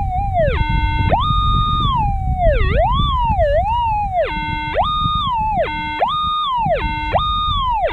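Metal detector's audio target signal: the steady threshold tone swings sharply up and down in pitch each time the 18-inch coil passes over a buried target, repeating about once a second, a strong, repeatable response that turns out to be a small piece of reef gold.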